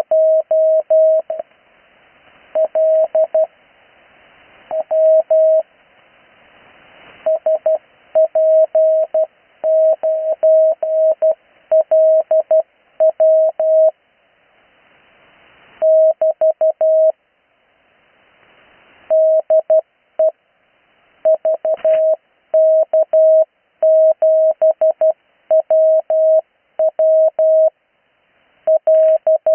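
Morse code (CW) call signs sent at a slow practice speed: a single steady tone of about 650 Hz keyed in dots and dashes, grouped into letters with short pauses between them. It is heard through an 80-metre amateur radio receiver, with band hiss swelling in each gap.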